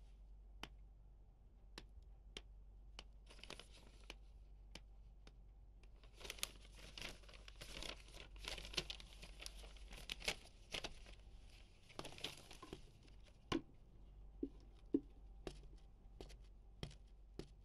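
Paper being handled and shuffled, rustling and crinkling most densely in the middle stretch, with scattered light clicks and knocks of small objects around it.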